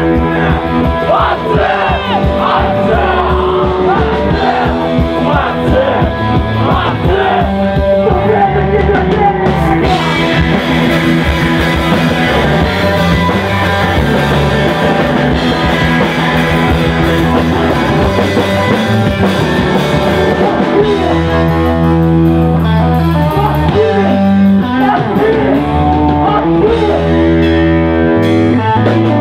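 Live punk rock band playing loud: electric guitar, bass and drums, with a sung vocal over the band for about the first third, then the guitars carry on without the voice.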